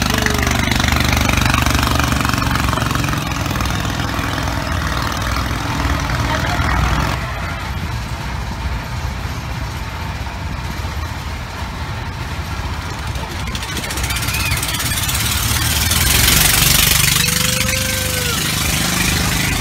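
Boat engine running steadily: a continuous low drone of a small motor boat under way. A rush of hiss swells briefly about sixteen seconds in.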